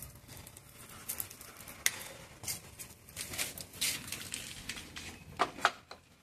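Handling noises from broom-making: rustling of stiff piassava fibre and twine, with scattered clicks and two louder knocks near the end.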